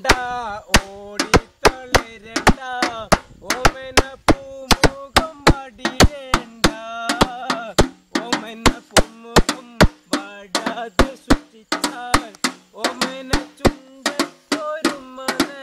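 Men singing a Malayalam folk song, with sharp, even percussive beats keeping time at about three a second.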